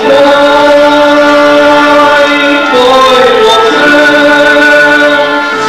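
A stage musical number: a singer holding long, slow notes over instrumental accompaniment, recorded live.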